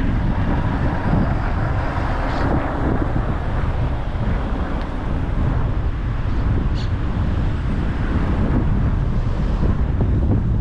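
Steady road noise from a moving car with wind buffeting the microphone.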